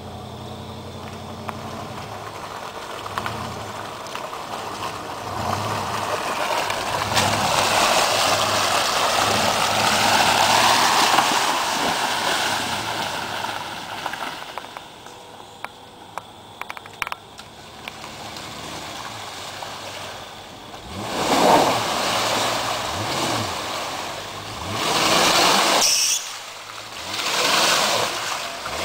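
A 4x4's engine revving hard while off-roading, pitch and loudness rising to a long peak about ten seconds in and falling away, then several short sharp bursts of throttle near the end.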